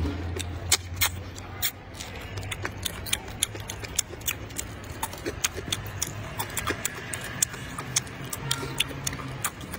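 Close mouth sounds of a man eating spicy rice noodles: wet chewing with many sharp, irregular smacks and clicks, several a second.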